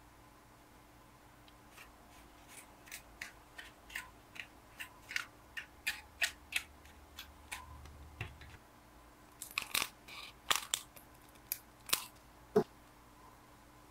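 Small plastic spoon stirring and scraping a wet powder mix in a plastic tray, with sharp clicks about twice a second. Near the end, crinkling and taps from a foil packet being handled.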